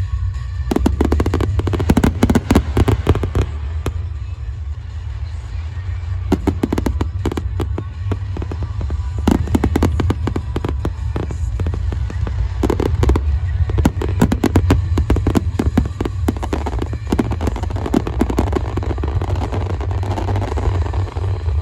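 Large aerial fireworks display: shells bursting in dense clusters of rapid cracks and bangs over a continuous low booming rumble.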